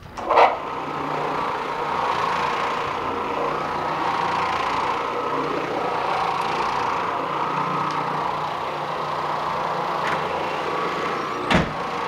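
Oreck Orbiter floor machine starting up about half a second in, then running steadily as its nylon carpet brush scrubs dry carpet, with a motor hum and the swish of bristles on the pile. A short knock comes near the end.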